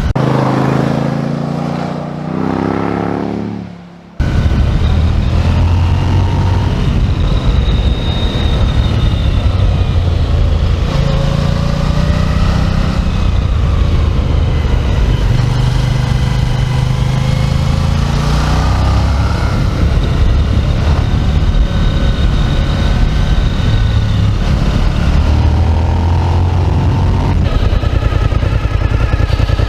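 Suzuki SV 1000 S V-twin engine. For the first four seconds its note drops in pitch and fades away as the bike passes and leaves. After a sudden cut it is loud again, the pitch rising and falling as the rider works the throttle through the gears.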